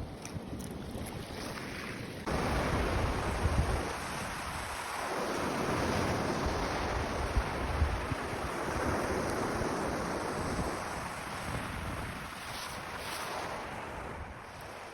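Strong Lake Michigan waves breaking and washing onto a rocky shore, the rush swelling and easing over several seconds. Wind buffets the microphone with a low rumble.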